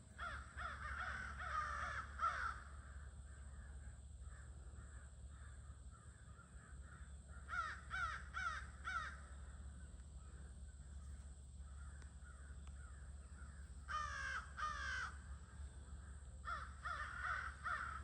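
A flock of crows cawing at their evening gathering. The calls come in bursts of several harsh caws, with fainter distant cawing in between. Two loud, falling caws come about two-thirds of the way in.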